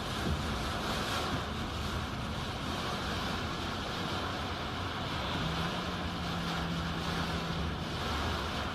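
Steady noise of a car heard from inside its cabin, with a faint low engine hum.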